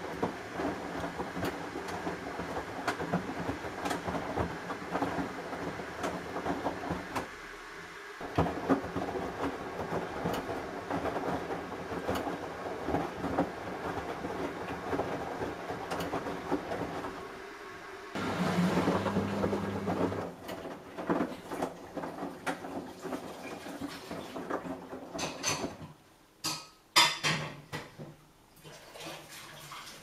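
Samsung EcoBubble front-loading washing machine tumbling a wet teddy bear and laundry in its drum: water sloshing and the load thudding, with two short pauses. About two-thirds of the way through the motor hums louder for a couple of seconds, and near the end the tumbling quietens to a few sharp knocks.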